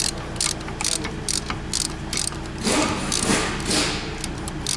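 Hand ratchet wrench clicking in quick runs as the rear wheel hub's mounting bolts are undone, the strokes growing louder and denser a little past halfway.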